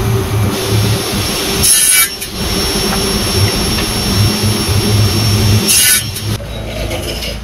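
Table saw running steadily as a board on a crosscut sled is pushed through the spinning blade, with two short louder bursts of cutting, one about two seconds in and one near six seconds in.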